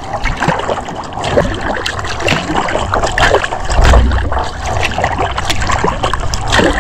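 Kayak paddle strokes: the blades dipping and pulling through calm water, with splashing and dripping and water gurgling along the hull. A low rumble swells about four seconds in.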